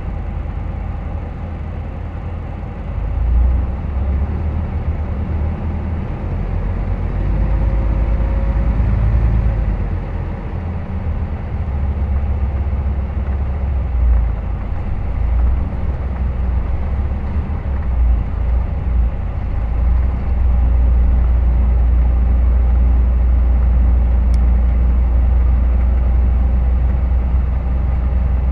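Running sound of a Hino Rainbow HR city bus heard inside the cabin: a low diesel engine drone with road noise. It swells and eases as the bus drives, then holds steady over the last third.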